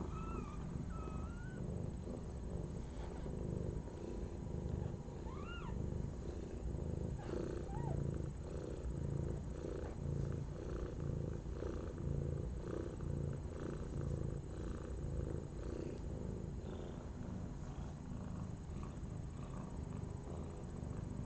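Mother cat purring steadily while licking her newborn kitten, the purr pulsing about once a second. A few brief high rising squeaks come in the first eight seconds.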